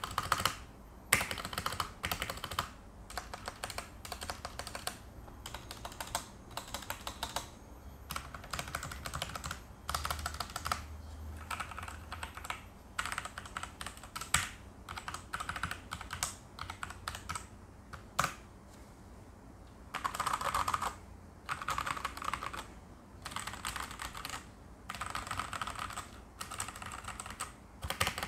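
Typing on a mechanical keyboard with RK/Huano brown tactile switches in hot-swap sockets: fast runs of keystrokes in bursts of a second or two, with short pauses between them and now and then a single louder key stroke.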